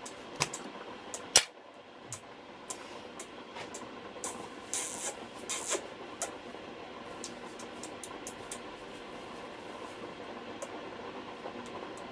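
Grey parrot's beak and tongue smacking and clicking against a woman's lips as it 'kisses' and sucks at her mouth: irregular soft wet clicks, with two brief hissing, sucking sounds about five seconds in.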